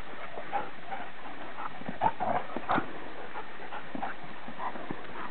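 An English setter and a poodle play-fighting, making short dog vocal sounds in scattered bursts, with the loudest ones about two seconds in.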